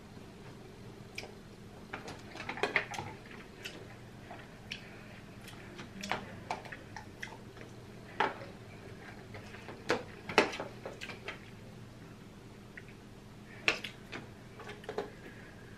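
Mukbang eating sounds of a buttery seafood boil eaten by hand: scattered wet smacks and clicks of chewing and of sauce-covered food being picked out of an aluminium foil pan, in irregular clusters over a faint steady hum.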